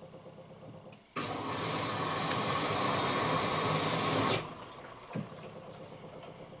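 Miele W1 washing machine letting water into the drum mid-wash. About a second in, a loud rush of water starts suddenly, lasts about three seconds and stops with a click, followed by a single thump, over the drum's low, steady tumbling.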